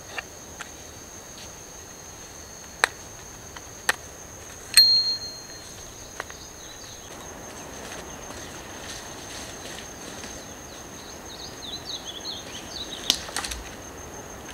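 Steady high-pitched drone of crickets or similar insects, with a few sharp clicks or snaps, the loudest about five seconds in. A run of short high chirps comes near the end.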